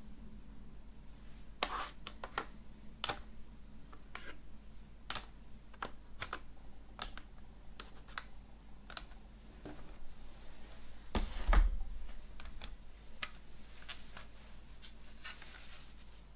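Plastic CD jewel cases clicking and clacking as they are picked up and set against one another on a wooden table: a string of separate sharp clicks, with one heavier knock about two-thirds of the way through.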